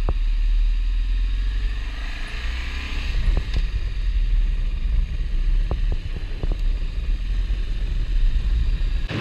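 BMW motorcycle running under way through traffic, its engine note under heavy wind rumble on the microphone.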